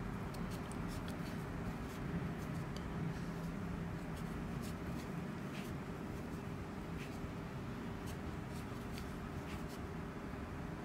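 Faint scratchy rustles and light ticks of a crochet hook and milk-cotton yarn, as the hook yarns over and pulls up loops for the half-finished trebles of a puff-stitch petal. A steady low hum runs underneath.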